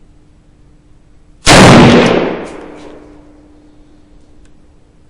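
A single shot from an Arsenal SLR-101S milled-receiver AK rifle fired from a bench rest, about a second and a half in, with a long echo dying away over about a second and a half under the covered firing line. A few faint clicks follow.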